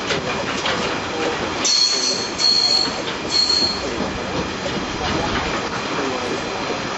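A train rolling past, with steady rail noise and three short high-pitched wheel squeals between about two and four seconds in.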